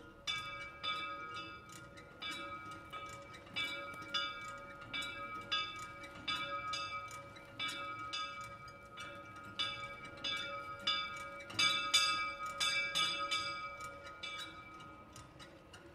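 Two small church bells, swung by hand and tuned to D-flat and E-flat, ringing together as a full peal. Their strikes come roughly twice a second in an uneven overlapping pattern and thin out near the end. This is the call to the evening rosary before Mass.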